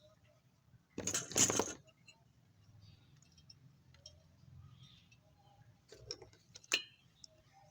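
A short metallic clatter, like small metal parts or a tool being set down and jostled, about a second in, followed by a couple of light clicks near the end.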